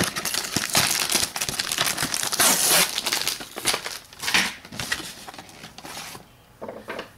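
Clear plastic packaging crinkling and cardboard rustling as a boxed doll's packaging is handled and unpacked. It is busiest and loudest in the first three seconds and thins to a few scattered crinkles near the end.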